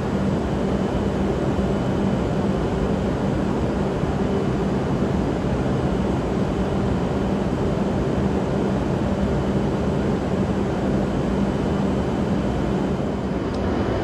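Steady hum and rush from a stationary E7/W7-series Shinkansen train's onboard equipment as it stands at the platform, with a faint high whine over a low hum.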